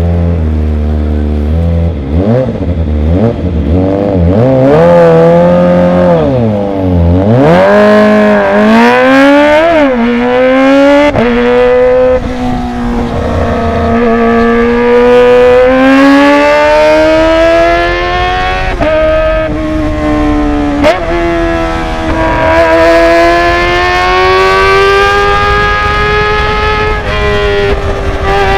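Kawasaki ZX-25R's 249 cc inline-four running loud through a Villan Z1 underbelly aftermarket exhaust. The engine note wavers for the first several seconds and dips deeply about seven seconds in. It then climbs steadily in pitch for most of the rest, broken by a few short drops.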